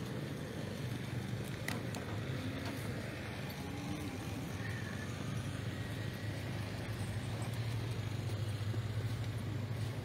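A motor vehicle engine running steadily nearby, a low hum that grows louder over the last few seconds.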